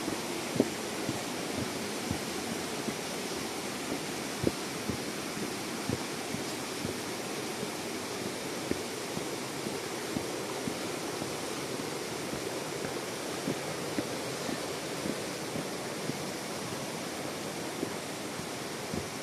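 Steady rush of a waterfall's falling water, with a few short, irregular taps scattered through it.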